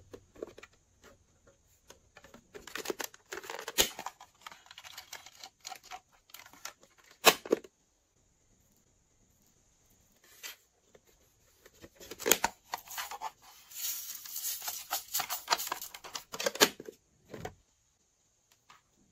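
Hands handling a plastic toy compact over trays of slime: scattered sharp plastic clicks and snaps, the loudest about 7 and 12 seconds in, between stretches of crinkly scraping and rustling.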